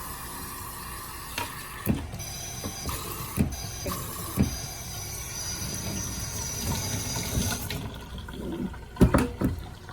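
Water running with a steady hiss, broken by a few knocks and clicks; the hiss stops about eight seconds in.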